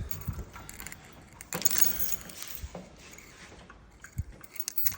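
A bunch of keys jangling and clinking as they are handled and sorted through, loudest about a second and a half in.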